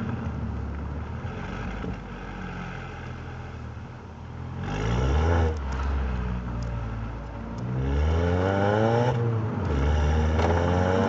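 Mini Cooper R56's 1.6-litre four-cylinder with an FSW cat-back exhaust, heard through the open boot while driving. It runs steadily at first, then the exhaust note climbs three times from about halfway in, dropping sharply between climbs as the car shifts up through the gears.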